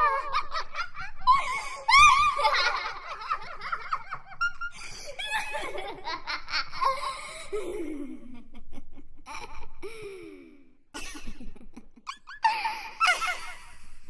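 Creepy little girls' laughter: giggles and laughs in repeated bursts, a few of them sliding down in pitch partway through, with a short break about eleven seconds in.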